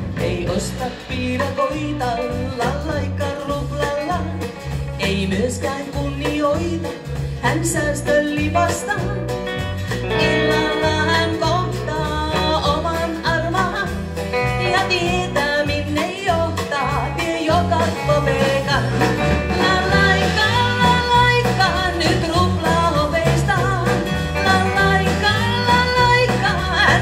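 Live band playing a song on drum kit, guitars and bass, with a woman singing.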